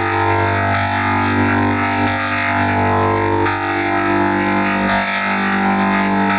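Church bell ringing recording run through a heavy audio effect, smeared into a dense, sustained drone of many steady tones with no separate strikes.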